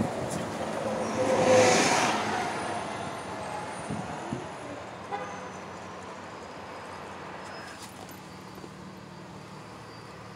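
Road and traffic noise heard from inside a moving taxi. A vehicle rushes past loudly about a second or two in, then the noise settles into a steady low hum of the cab's engine and tyres.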